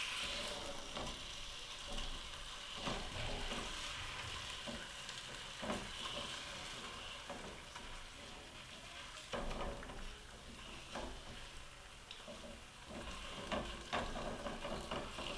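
Chicken pieces sizzling in a glaze in a skillet on a gas burner, a steady hiss that is strongest in the first half. Scattered clicks and scrapes of metal tongs against the pan as the pieces are turned and coated.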